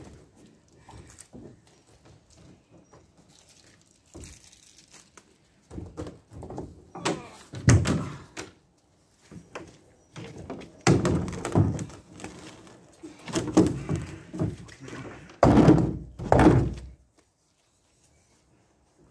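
A run of loud thuds and knocks from gear being handled and loaded at a car, coming in clusters over about ten seconds and stopping about two seconds before the end.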